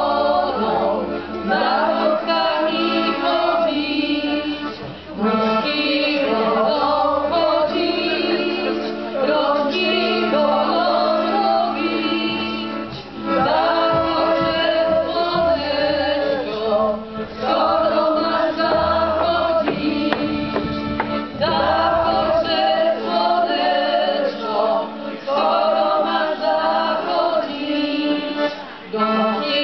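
A small group of women singing a song together into microphones, in phrases with short breaks between them.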